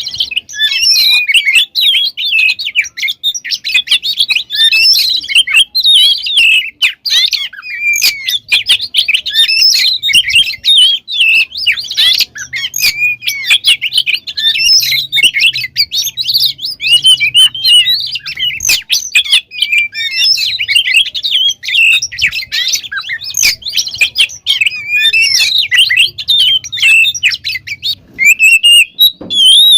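Oriental magpie-robin (kacer) singing without pause: a fast, varied stream of whistles, trills and chattering notes.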